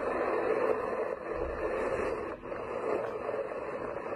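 Military helicopters hovering low: a steady rush of rotor and turbine noise, with a brief drop in level about two and a half seconds in.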